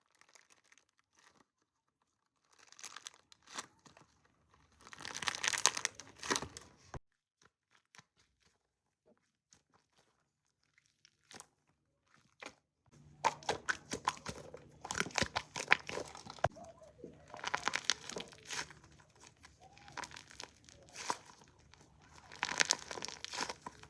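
Slime being squeezed and worked with the fingers, giving dense crackling and crinkling pops in bursts. It is mostly quiet for several seconds in the middle, then the crackling runs almost without a break.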